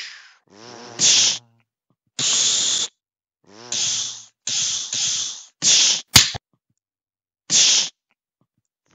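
A person imitating lightsaber swings and clashes with their mouth: about seven short hissing bursts separated by silences, some opening with a brief falling voiced whoosh, with a sharp click about six seconds in.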